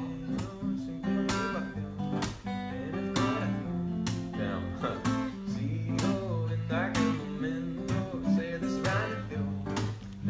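Acoustic guitar strummed in a steady rhythm, running through an A minor, C, G, F chord progression.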